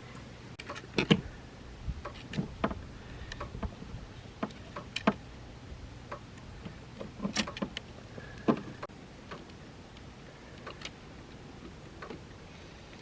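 Scattered clicks and taps of tools and small parts being handled during wiring work, over the low steady hum of an electric soldering gun that cuts off about nine seconds in.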